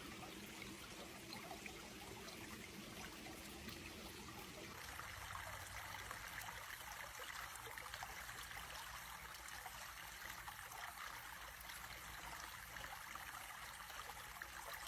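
Shallow creek water trickling and running over stones, faint and steady. About five seconds in it shifts to a brighter, thinner trickle.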